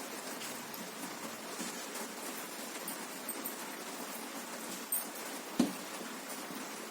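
Steady hiss of heavy rain with small scattered ticks, and two sharp clicks about five and five and a half seconds in, the second one louder.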